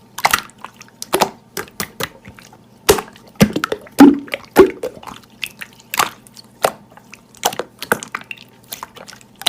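Slime being squished and pressed by hand, giving an irregular run of wet clicks and pops.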